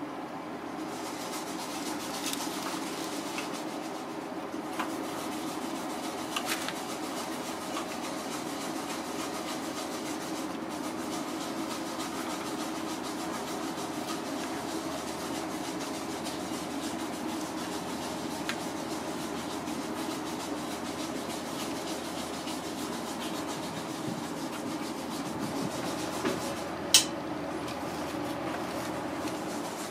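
Wooden chopsticks and hands handling live loaches on parchment paper in a steel tray: soft rubbing and rustling with light clicks, and one sharp click about 27 seconds in, over a steady background hum.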